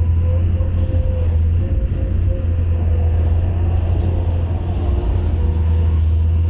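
Excavator's diesel engine running steadily with a deep, constant drone and a thin wavering whine above it, with a couple of faint clicks.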